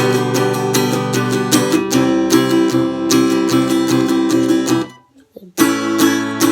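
Acoustic guitar strummed in quick, steady chords; the playing breaks off about five seconds in, then resumes for a few more strums.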